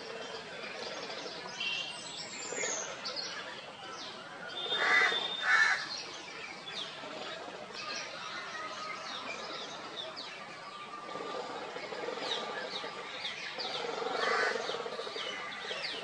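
Birds chirping, with many short high chirps throughout and two loud calls in quick succession about five seconds in.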